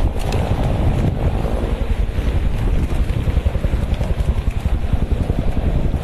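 Strong wind buffeting the microphone in a continuous low rumbling rush, over the sound of a wind-driven grass fire burning beside the road.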